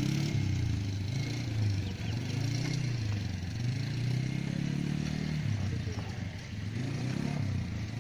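Polaris 330 cc quad bike engine revving up and down as the rider drives it round a course, its note rising and falling repeatedly.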